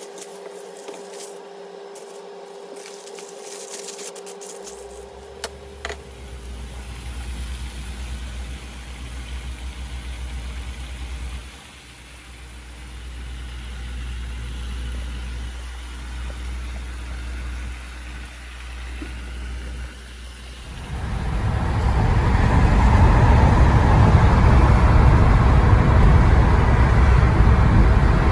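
Car running, heard from inside the cabin: a steady low engine hum, then, about two-thirds of the way through, much louder steady road and engine noise as the car drives at speed.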